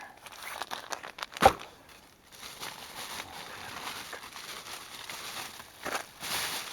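Packets of groundbait rustling and crinkling as they are handled, with one sharp knock about one and a half seconds in and a louder burst of rustling near the end.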